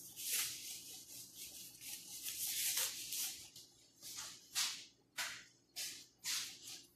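Off-camera rustling and rubbing, a steady stretch at first, then a run of short swishes about half a second apart in the second half.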